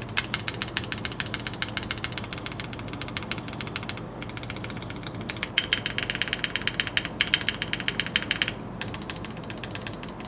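Typing on an RK61 mechanical keyboard: rapid clacking keystrokes, a short pause about four seconds in, then a run of brighter-toned key presses before the typing slows near the end.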